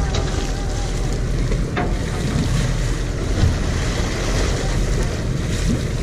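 Wind buffeting the microphone on a fishing boat's rail over a steady low rumble, with waves washing against the hull. A single brief click about two seconds in.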